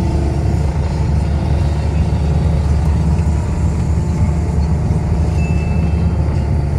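Hyundai H1 campervan's engine and road noise heard inside the cabin, a steady low drone as the van climbs a steep concrete road.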